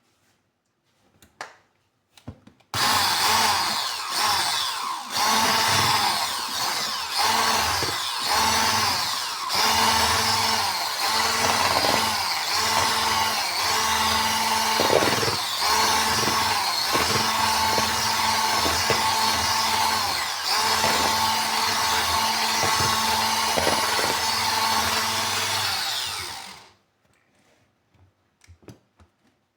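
An electric kitchen appliance motor runs at a steady speed for about 24 seconds, starting a few seconds in and cutting off near the end, with irregular knocks and rattles through its hum.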